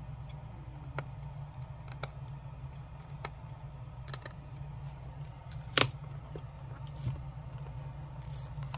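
Scattered small clicks and snaps of hand tools cutting and picking out the stitching at the heel of a leather chukka boot, with a sharper snap about six seconds in and another at the very end. A steady low hum runs underneath.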